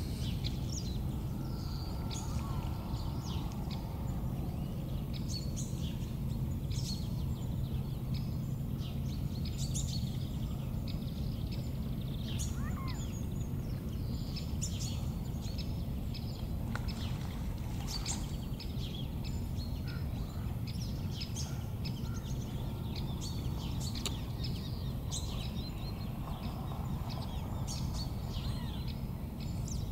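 Birds chirping and calling in many short, scattered notes over a steady low rumble.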